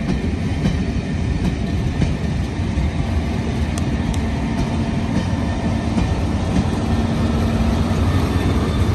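Passenger coaches of a departing train rolling past on jointed track, with a steady rumble and wheels clicking over the rail joints. A steady hum comes in about halfway through as the GBRf Class 66 diesel locomotive at the rear draws near.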